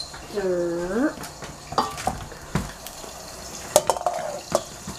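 Cookware being handled at the stove: about half a dozen sharp knocks and clinks of a wooden spoon against metal pots and a stainless steel bowl.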